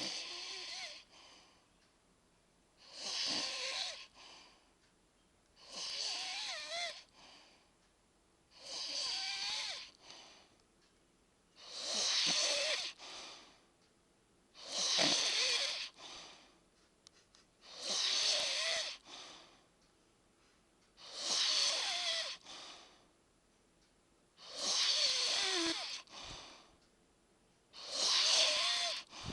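A man snoring in his sleep, one snore about every three seconds, about ten in all. Each snore is a rasping breath lasting about a second and a half with a short tail after it and a wavering whistle running through it.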